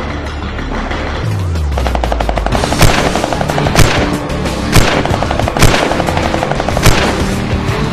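Bursts of very rapid automatic gunfire and five loud, heavy hits over music, with a deep falling tone a little over a second in; it sounds like a dramatic gunfire soundtrack rather than real airsoft guns.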